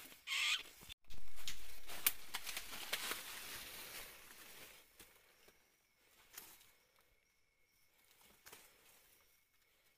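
Dry leaf litter and twigs rustling and crackling as a rat caught in a snare thrashes and is handled, dying away after about five seconds.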